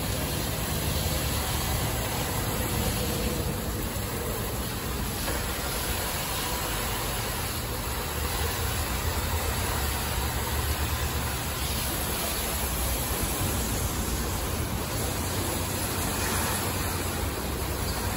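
PDQ LaserWash M5 touchless car wash running its cycle: a steady rushing noise of water spray and machinery, with a low hum underneath.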